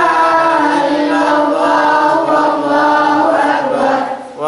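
A boy reciting the Qur'an in a melodic chanted style, drawing out long held notes that bend in pitch, with a brief pause for breath near the end.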